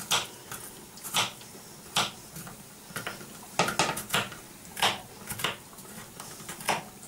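Small knife chopping garlic cloves on a wooden cutting board: irregular knocks of the blade against the board, about one or two a second.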